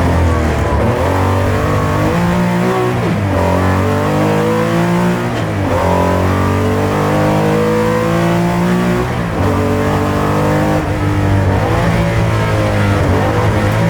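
Porsche 911 (930) air-cooled flat-six engine under hard acceleration on a rally stage, heard from inside the car. Its revs climb and then drop sharply at gear changes about three, five and a half, and nine seconds in.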